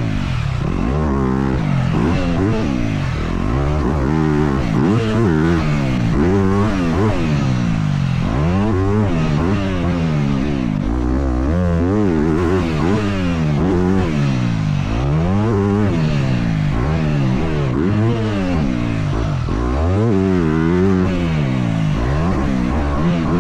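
Yamaha YZ250F four-stroke single-cylinder dirt bike engine at race pace, revving up hard and dropping off over and over, with its pitch rising and falling every second or two as the throttle is opened and closed.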